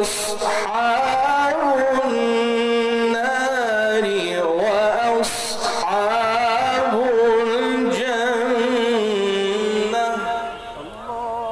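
A man reciting the Quran in melodic tilawat style, with long held notes and ornamented, wavering pitch turns. The phrase dies away about ten seconds in.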